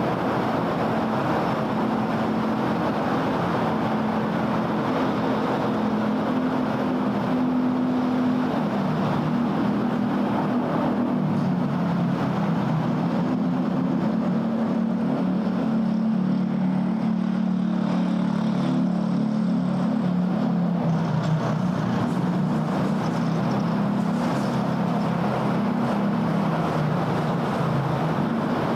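City road traffic: a steady rumble of passing cars and their tyres, with a low engine hum that slides slowly lower in pitch and fades near the end.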